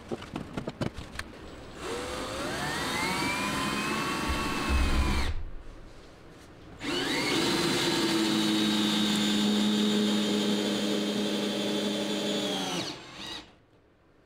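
Ryobi cordless drill driving screws into a wooden batten, in two runs: the first rises in pitch as the motor speeds up for about three seconds, the second runs steadily for about six seconds and winds down near the end. A few handling clicks come before the first run.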